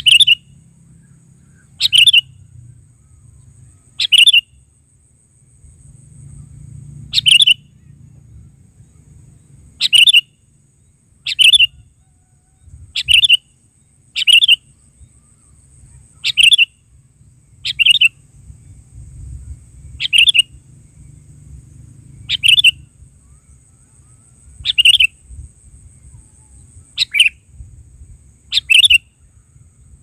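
Sooty-headed bulbul calling: about fifteen short, bright calls, one every one and a half to three seconds.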